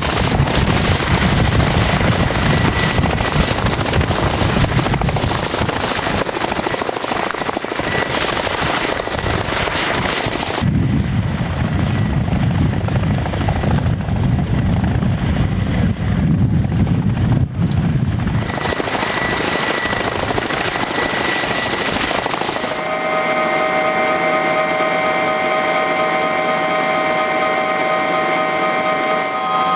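Helicopter running close by, a loud, steady rushing noise. About three-quarters of the way through it gives way to the steady whine of the helicopter's turbine engines, heard from inside the cabin.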